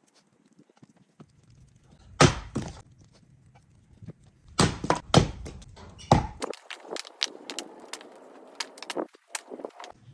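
Axe blows splitting firewood: four heavy strikes, the first about two seconds in and three more close together a few seconds later, followed by a run of lighter knocks and clicks of wood.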